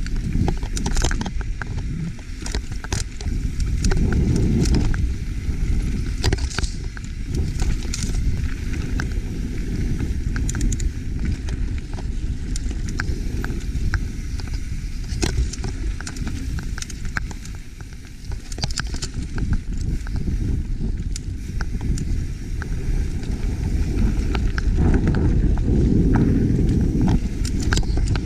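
YT Capra full-suspension mountain bike riding down rocky dirt singletrack: a continuous low rumble from the tyres rolling, with frequent sharp clicks and rattles as the bike hits rocks.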